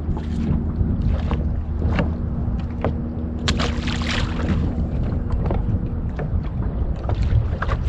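Small fishing boat's motor humming steadily, with wind on the microphone and scattered small knocks and clicks. One tone in the hum stops about five seconds in.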